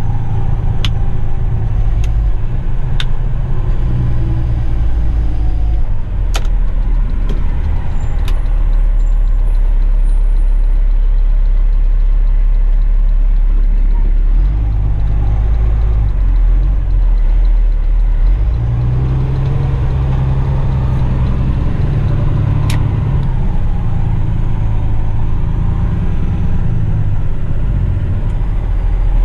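Dump truck's diesel engine running under the cab, a loud low rumble whose note shifts several times as the truck is driven slowly. A few sharp clicks sound now and then.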